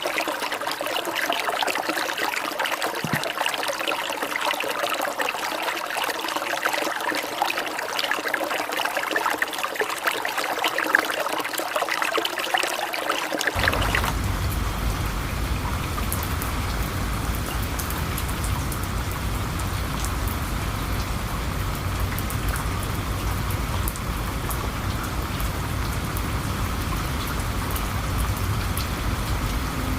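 Trickling, splashing water for the first half. About halfway through it changes abruptly to steady heavy rain with a low rumble underneath, like a thunderstorm.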